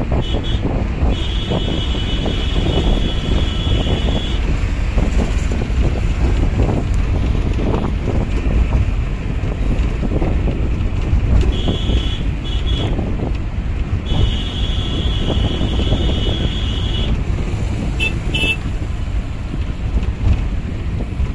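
Road rumble and wind buffeting the microphone from a moving vehicle, broken by high-pitched vehicle horn blasts: a long one about a second in, several more in the middle, and two short toots later.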